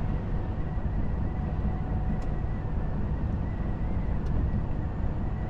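Inside the cab of a Volvo FH 460 truck cruising steadily at about 82 km/h: an even low rumble of engine and tyres, with road and wind noise.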